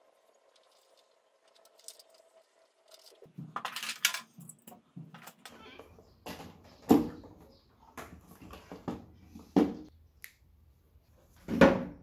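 Handling noise from a plastic RC dump truck being turned over: rustling and clicks, then several hard knocks as the body is set down, the loudest near the end. A faint steady hum runs through the first few seconds.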